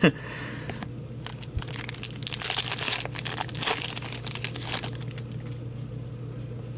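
Foil wrapper of an Upper Deck hockey card pack crinkling and tearing as it is opened by hand, with cards rustling against each other. A dense run of crackles starts about a second in and eases off after about five seconds into quieter handling.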